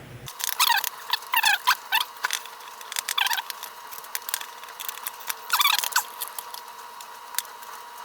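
Short squeaks and scattered sharp clicks from disassembling a Harbor Freight angle grinder's gear head by hand: metal and plastic parts rubbing and being worked apart, in about four squeaky bursts.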